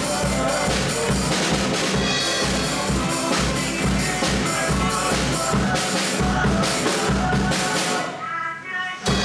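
Drum kit played with sticks in a steady pop beat, bass drum and snare under accompanying pitched music. Near the end the sound thins out for about a second, then a loud hit brings the full beat back.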